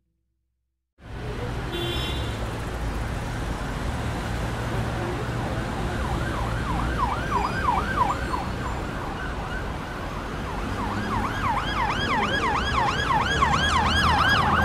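Traffic noise with an emergency vehicle's siren in a fast yelp, rising and falling about three times a second; it comes in about six seconds in, drops away, and returns louder near the end.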